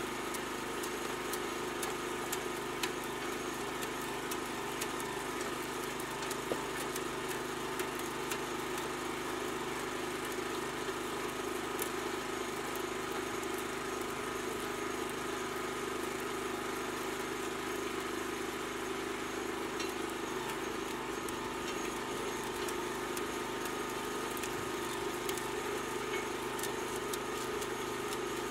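Small petrol engine running steadily at working speed, turning a homemade auger branch shredder through a reduction gearbox. Irregular sharp cracks and clicks sound over it as branches about 20 mm thick are pulled in by the auger and chopped.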